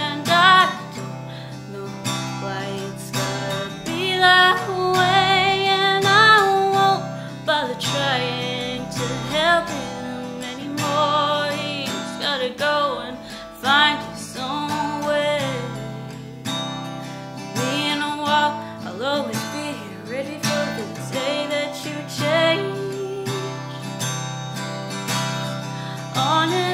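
Acoustic guitar strummed while a young woman sings over it, her voice holding long notes with a wavering vibrato.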